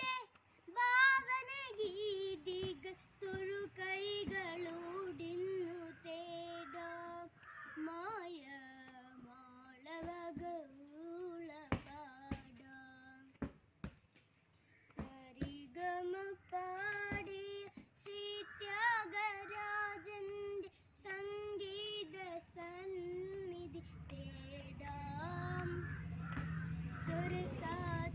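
A young boy singing a melody solo, without accompaniment, holding long wavering notes, with a short pause about halfway through. A low rumble comes in under the voice near the end.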